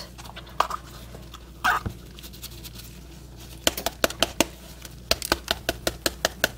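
Light, sharp taps and clicks as a hollowed bell pepper is handled in gloved hands over a plastic container to knock its seeds out: a few single taps at first, then a quicker irregular run of about three or four a second in the second half.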